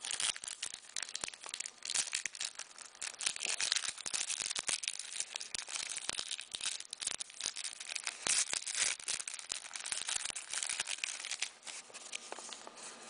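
Hands flipping through a stack of 2009-10 O-Pee-Chee hockey trading cards: a steady run of rustling with many quick clicks as the cards slide and snap against each other, along with some crinkling.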